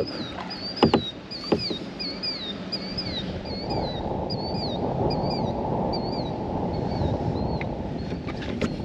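A bird repeating a short, clear whistled note that slides downward, about two a second, over the splash and knocks of kayak paddling. From about four seconds in a steady rushing noise rises beneath it.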